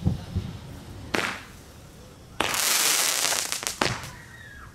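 Backyard consumer fireworks going off: a single sharp bang about a second in, then a loud hissing spray for about a second and a half that ends in a few sharp cracks, with a faint falling whistle near the end.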